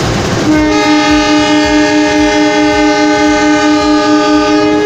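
Horn of a CC 206 diesel-electric locomotive sounding one long blast of several tones together, starting about half a second in. Underneath is a steady rumble.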